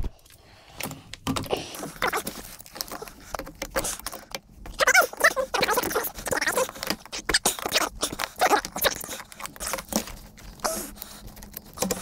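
Pliers and hands working the old geothermal flow center's hose fittings and metal clamps loose: irregular clicking, rattling and scraping of metal and plastic.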